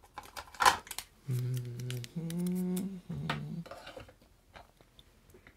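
Clicks and taps from handling a plastic graded-coin slab holding a Buffalo nickel, with the sharpest click just under a second in. Over the middle of it a man hums three held notes, the second the highest, for about two seconds.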